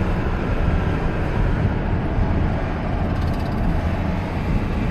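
Cab noise of a 2000 Dodge Ram 1500 driving at road speed: steady engine and tyre rumble with no differential whine, the hum cured by a newly replaced differential.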